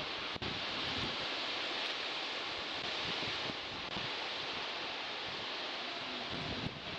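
Sea surf making a continuous, even wash of noise with no distinct breaking waves, and a brief dropout about half a second in.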